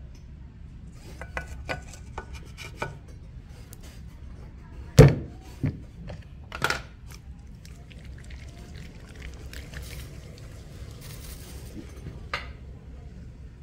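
A ball of wet clay slapped down hard onto a pottery wheel bat about five seconds in, followed by two lighter slaps as it is pressed on. Light clicks and knocks come before it, and a faint hiss of wet hands on the spinning clay near the end.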